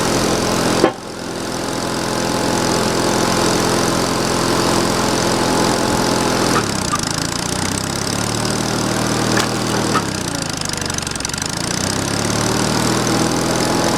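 Sawmill engine running steadily, with one sharp knock about a second in. Its pitch sags around the middle and climbs back near the end.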